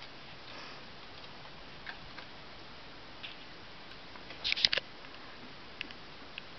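A few faint clicks and taps over a steady low hiss, with a short cluster of sharper clicks about two-thirds of the way through.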